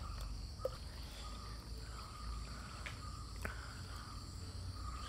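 Crickets chirring steadily, with a faint trickle of water poured from a steel vessel into a pot of mud and a few small clicks.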